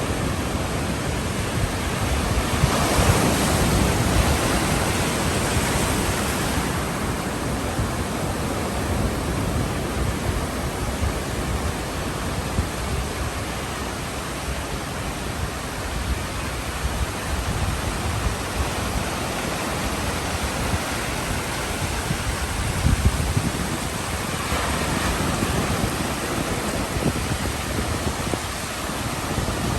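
Ocean surf: waves breaking and washing in a continuous rushing hiss, swelling louder about three seconds in and again near the end.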